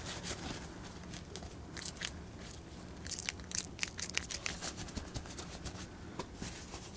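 Paper towel crinkling and rustling in the hand as it wipes spilled water off a rubber toy dinosaur and the surface behind it: a run of faint, short scratchy rustles, busiest a few seconds in.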